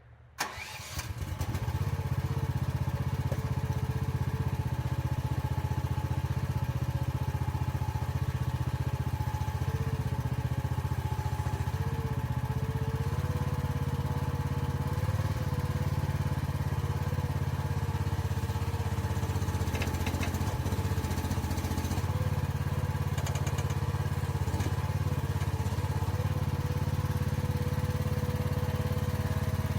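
Mini excavator's engine starting with a sudden onset about half a second in, then running steadily.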